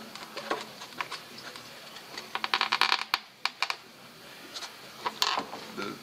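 Hand tool working at a corroded screw in the plastic end cap of a steel bumper: scattered clicks and taps, with a quick run of rapid clicking a little after two seconds in.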